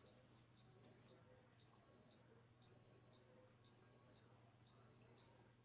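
Instant Pot electric pressure cooker beeping at the end of its pressure-cooking cycle as it switches to keep-warm: a row of high, even beeps, each about half a second long, about one a second.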